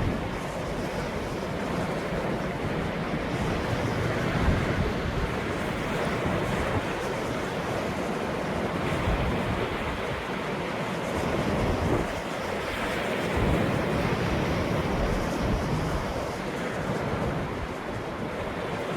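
Ocean surf: waves washing in and breaking, a steady rushing that swells and eases every few seconds.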